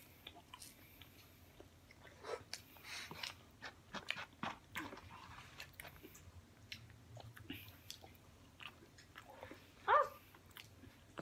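Close-up mouth sounds of people biting and chewing food, with scattered small crunches and wet clicks. A brief pitched sound about ten seconds in is the loudest moment.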